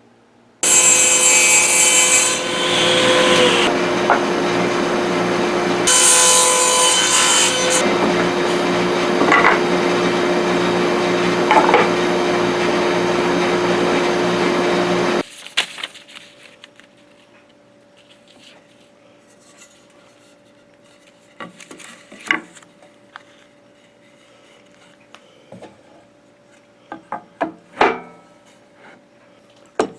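Table saw running and ripping wood, with two passes through the blade that bring a harsher, hissier cutting sound. About halfway through, the saw noise cuts off suddenly, leaving a low background with a few light knocks and handling sounds.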